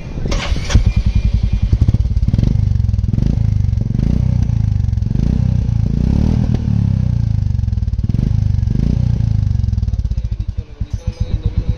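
Royal Enfield Classic 350 Reborn's single-cylinder engine running through a Gold Star-style aftermarket silencer held by hand at the exhaust outlet for a sound test. It makes a rapid, low, even pulse that rises and falls with the throttle and drops back near the end.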